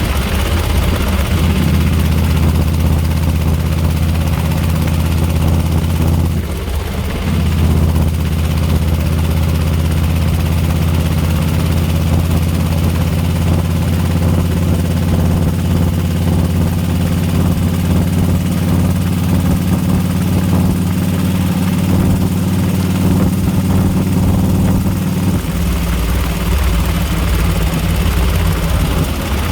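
2004 Harley-Davidson Screamin' Eagle Ultra Classic's 103-cubic-inch Twin Cam V-twin running steadily, with the ticking that the owner calls horrible and cannot identify. The engine note dips briefly about six seconds in.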